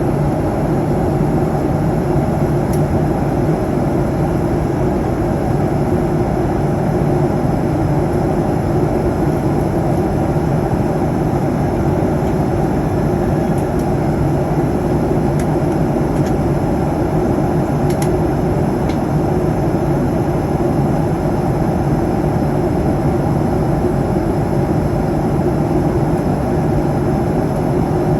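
Steady cabin noise of an airliner in cruise: engine and airflow noise, even and unbroken, with a low hum running through it.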